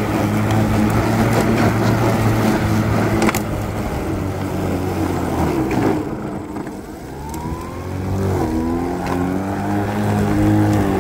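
Kobalt 80-volt brushless cordless electric lawn mower running and cutting grass with a steady hum. About two-thirds of the way through, the hum drops in level and pitch, then climbs back up.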